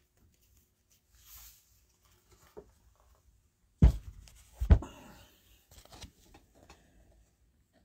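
Two dull knocks about a second apart, about four seconds in, then rustling and light clicking as a stack of trading cards in plastic sleeves is picked up and handled.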